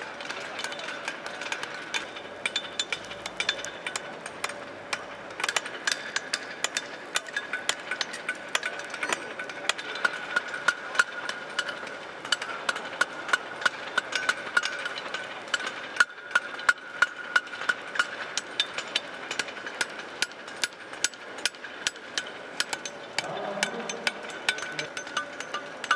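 Blacksmiths' hammers striking steel on anvils, many overlapping blows at an irregular pace, with the anvils ringing on steadily between them. The blows come thicker and louder from about six seconds in.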